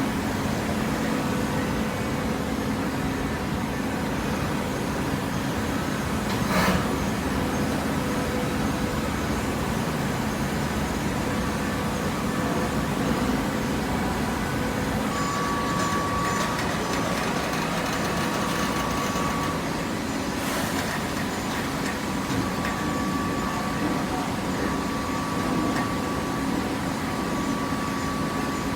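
Cardboard baler running, its machinery giving a steady mechanical hum. A higher steady whine comes and goes in long stretches in the second half, and two sharp knocks sound, about seven and twenty seconds in.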